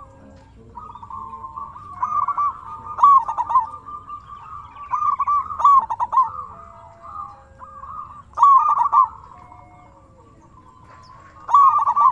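Zebra doves (perkutut) cooing: repeated rolling, bubbling coo phrases every second or two, with fainter overlapping coos between the loud ones.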